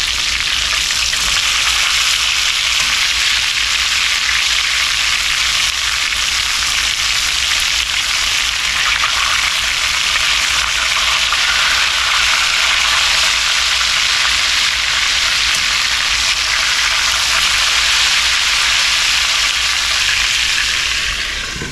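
Flour-dredged chicken pieces shallow-frying in shortening in a cast iron skillet: a steady, loud sizzle of bubbling grease. The pieces are nearly done and getting pretty brown.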